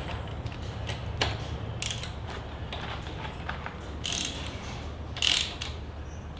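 Ratchet and socket clicking in a few short bursts of strokes as a spark plug is snugged down into an outboard engine's cylinder head.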